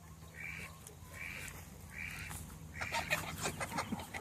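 A duck quacking four times, about one call every eight tenths of a second, with scattered knocks and rustling building up near the end.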